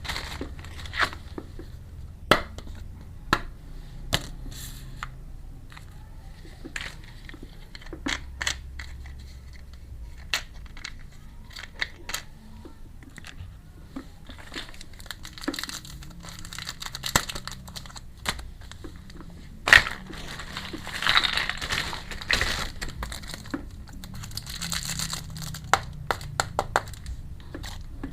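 Small plastic toy pieces clicking and tapping as they are handled, with plastic packaging crinkling in stretches during the second half.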